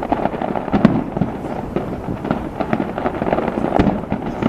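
Fireworks going off in a dense, continuous barrage of cracks and booms, with two heavier bangs about a second in and near the end.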